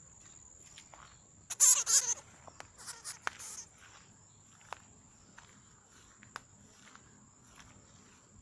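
A steady, high-pitched insect trill, with a loud, scratchy burst of sound about a second and a half in, a few smaller ones just after it, and a couple of faint clicks later.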